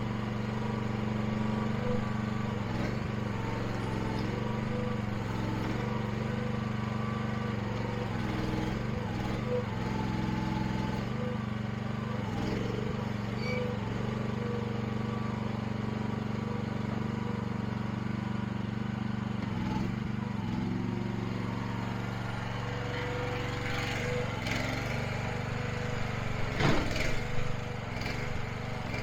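Small gasoline engine running steadily, with a few knocks and clanks near the end.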